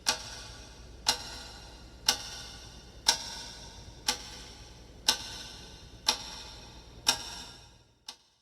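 Clock ticking sound effect: a sharp tick once a second, eight in a row, then a fainter last tick near the end, over a faint low hum.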